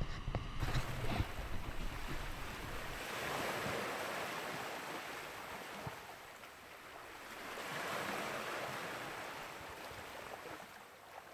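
Ocean surf washing onto the beach, a rushing hiss that swells twice, about three seconds in and again about eight seconds in.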